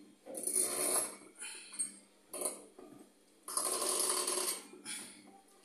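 Winged corkscrew being twisted into a wine bottle's cork: a series of short scraping, creaking bursts as the worm is turned into the cork, the longest about three and a half seconds in.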